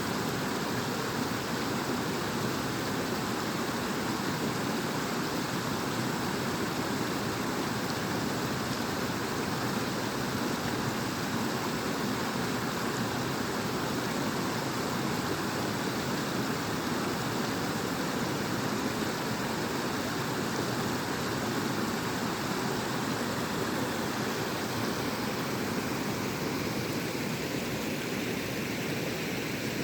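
Natural waterfall: water falling and splashing in a steady, unbroken rush.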